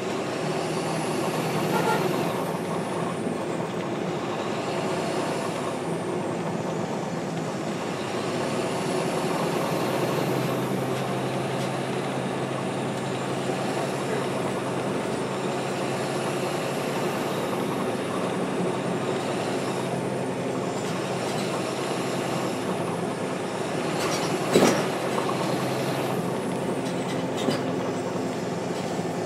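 NABI 416.15 transit bus with a Caterpillar C-13 diesel engine and ZF Ecomat 6HP-594C automatic transmission, running in service. A steady mechanical drone shifts pitch about ten seconds in, faint high whines rise and fall, and there is one sharp knock near the end.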